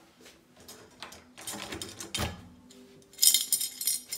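Scattered clicks and knocks of handling, then a metal room key and its key tag jingling and clinking in the hand near the end.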